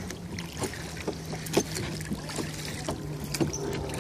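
Rowing boat under way: oars knocking and clunking in their rowlocks at irregular intervals, over a steady low hum.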